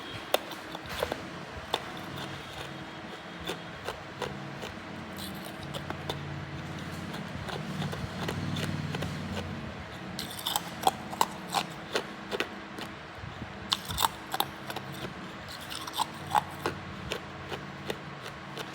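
Hard ice being bitten and crunched in the mouth close to the microphone: scattered sharp cracks at first, then quick runs of crunching cracks in the second half.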